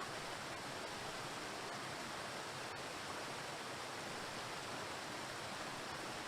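Waterfall: water falling onto rocks, a steady even rushing.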